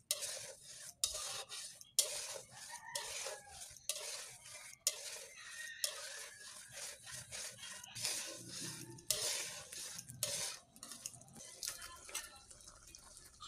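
A spatula stirring and scraping through sauce and vegetable strips in a frying pan, in a quick, irregular run of short strokes.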